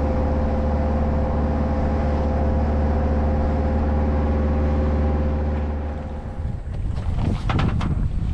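Boat engine running steadily under way, with the rush of the water, then dropping off about six seconds in as the boat comes to a stop. After that, irregular clicks and knocks from handling the fishing gear.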